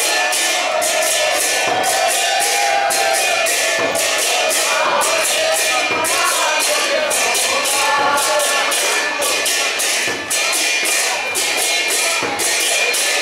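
Kirtan: a crowd of devotees singing a devotional chant together, with hand cymbals struck in a steady, fast, unbroken beat.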